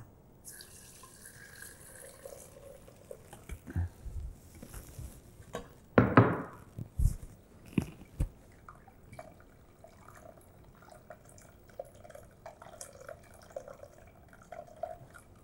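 Fish broth trickling and dripping through a fine-mesh metal sieve into a copper saucepan, with scattered knocks and scrapes of a spoon against the sieve, the loudest about six seconds in.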